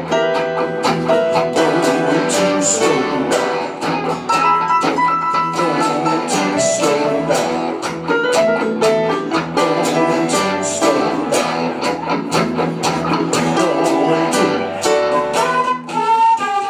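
Live band playing a rock song without vocals: strummed acoustic and electric guitars with a bowed fiddle over a steady beat.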